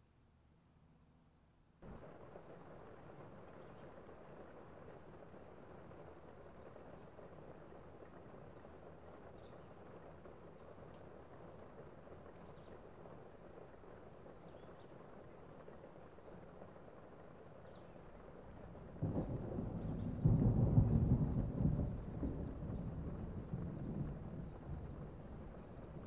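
Crickets trilling steadily, with a steady rushing noise joining about two seconds in. Near the end a long rumble of thunder swells up, loudest around three quarters through, and slowly fades, while the insect chorus changes to a higher, pulsing trill.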